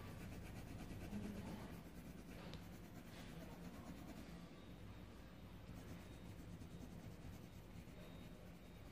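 Coloured pencil being rubbed across paper in quick back-and-forth strokes while colouring in a drawing.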